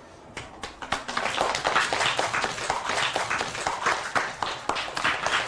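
A class of schoolchildren clapping together. A few separate claps about half a second in quickly build into steady, dense applause.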